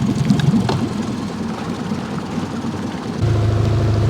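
Boat motor running at low speed, running smoothly. About three seconds in, its sound turns steadier and a little louder.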